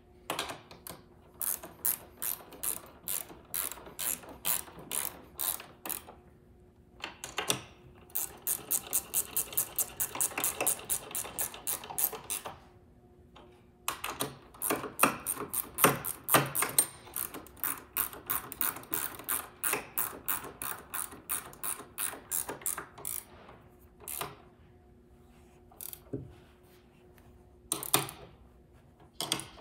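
A 13 mm ratchet wrench clicking as short bolts are run down and tightened into a steel mounting plate. It comes in several spells of rapid, even clicking with brief pauses between them, and a few single clicks near the end.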